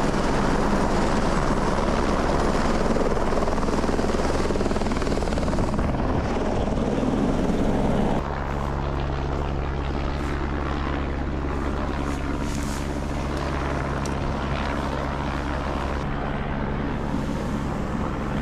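Helicopter hovering low, its rotor and turbine a continuous drone. About eight seconds in the sound drops a little and runs on more evenly.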